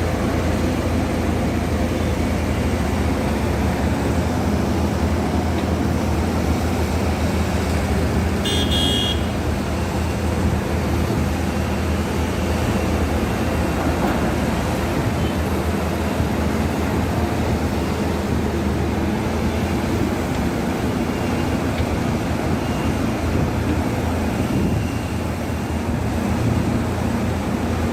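Diesel engine of a Caterpillar excavator running steadily under load, a continuous low drone. About nine seconds in, a brief high-pitched squeal cuts through.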